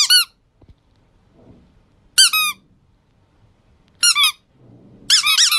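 Yellow plush chick squeak toy squeezed against a kitten, giving four short bursts of quick, high-pitched chirping squeaks, the last one longer.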